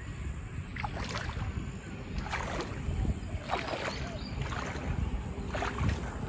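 Shallow water sloshing and splashing in several short bursts around a person's legs as he wades in, over a low steady rumble of wind on the microphone.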